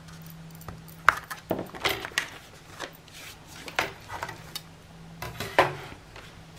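Cardstock being folded and handled on a work table: scattered light taps and short paper rustles, over a faint steady low hum.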